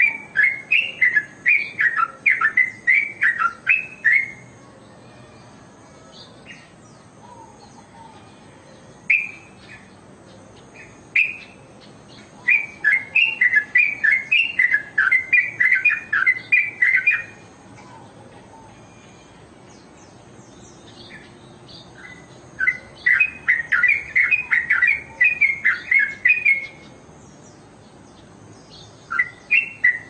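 Yellow-vented bulbul (trucuk) singing: bursts of rapid, quick-fire notes about four seconds long, repeated three or four times with pauses of several seconds between, and a couple of single short calls in the gaps.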